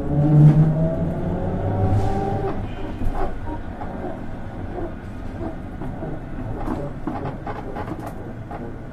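Toshiba GTO inverter of a Tateyama Tunnel Trolleybus 8000 series whining as the bus accelerates, with several tones rising slowly in pitch. After about two and a half seconds the whine fades into steady running noise with scattered clicks.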